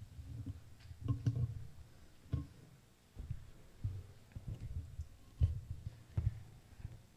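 Microphone handling noise: irregular low thumps and bumps, with a few sharper clicks, as the microphone is adjusted on its stand and then held in the hand.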